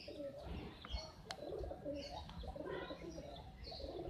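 Domestic pigeons cooing, several calls overlapping, with a few short higher chirps mixed in.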